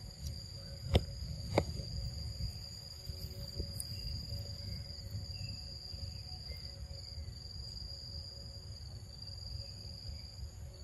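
Steady high-pitched drone of forest insects over a low rumble, with two short sharp clicks about one and one and a half seconds in.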